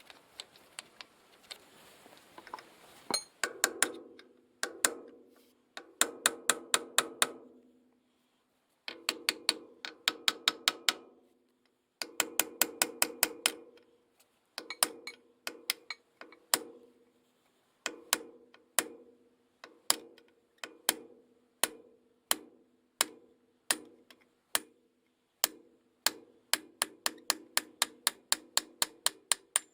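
Runs of sharp metal taps, several a second with short pauses between runs, each leaving a brief ringing tone, like light hammer blows on a steel part of a tractor axle.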